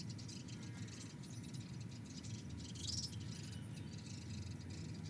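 Insects chirring in a rapid, steady pulse over a low rumble, with one short high chirp about three seconds in.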